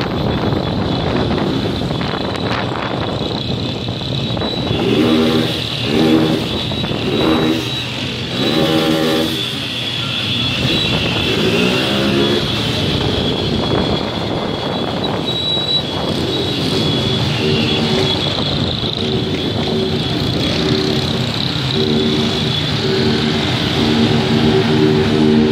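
Small single-cylinder motorcycle engines, a Honda CG 160 Fan among them, running in a group at street speed, with wind on the microphone. About five seconds in, several short sharp throttle blips, then a single rev up and down, and the engine settles into steadier running.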